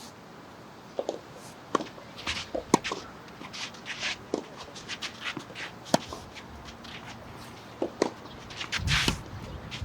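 Footsteps and shoe scuffs of tennis players moving on the court, with several sharp knocks scattered through it and a louder low rumble near the end.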